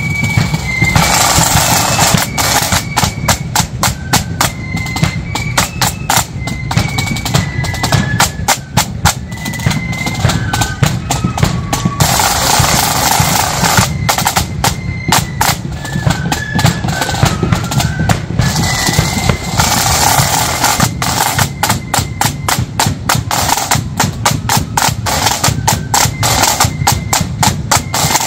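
Marching flute band playing a tune: a high melody stepping from note to note over rapid snare drum rolls and steady bass drum beats.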